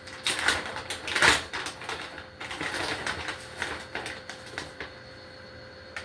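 Kitchen handling sounds: irregular rustles, scrapes and light knocks as a measuring spoon and sweetener container are worked over small glass mason jars. The loudest knock comes a little over a second in, and the sounds die away about five seconds in.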